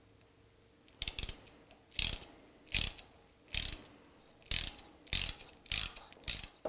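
Ratchet driving an M6x1.0 bottom tap through a socket extension, finishing a threaded hole in the lathe: about eight short bursts of ratchet clicking, roughly one every three-quarters of a second, as the tap is turned in short strokes, starting about a second in.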